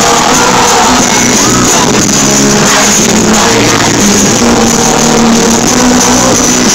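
Live pop music played loud through an arena sound system, with crowd voices mixed in.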